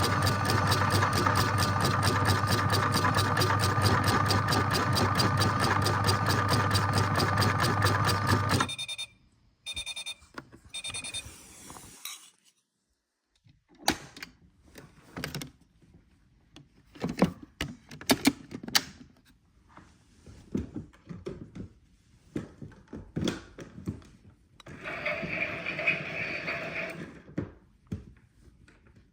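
A washing machine runs with a steady hum and fast rhythm, then stops suddenly about nine seconds in. Three short electronic beeps follow, then scattered clicks and knocks, and near the end a steady tone lasting about two seconds.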